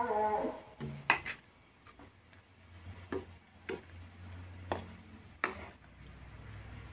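Ladle clinking against the side of a cooking pot while broth is stirred: a few sharp, irregularly spaced clinks over a faint low hum.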